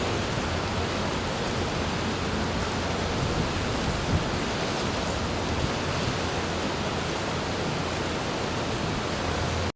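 Steady rush of a river in flood, its swollen, muddy water pouring past without a break; it cuts off suddenly at the end.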